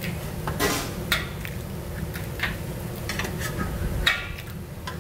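Metal spatula scraping and clinking on a steel flat-top griddle while a sheet of egg is folded into a rolled omelette, several separate clinks and scrapes over a steady low hum.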